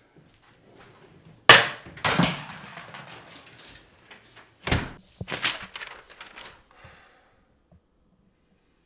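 A house door slamming shut about a second and a half in, followed by a second sharp knock a few seconds later and a run of smaller knocks and rustles.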